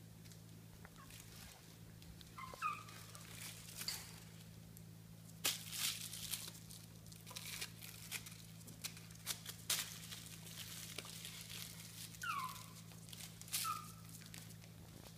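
Mi-Ki puppies playing on a tile floor: scattered clicks, scratches and knocks of claws and toys. There are a few short high squeaks, a pair a few seconds in and a pair near the end, over a steady low hum.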